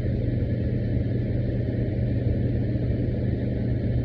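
Steady low rumble with a constant low hum.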